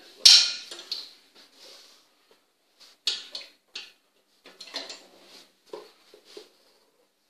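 Metal hooks of rubber bungee cords clinking and knocking against the painted steel frame of a ski-simulator carriage as they are hooked on. A sharp clank with a short ring about a quarter second in is the loudest, followed by scattered lighter clicks and knocks.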